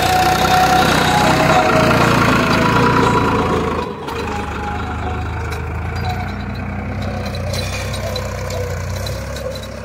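Tractor engine running steadily. About four seconds in the sound drops abruptly, then the engine carries on slightly quieter.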